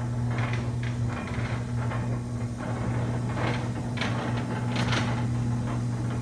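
Steady low electric hum from a Lantech Q-Series semi-automatic pallet stretch wrapper, with scattered light clicks and scuffs over it.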